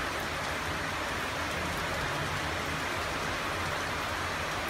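Torrential rain falling steadily, a dense even hiss of downpour.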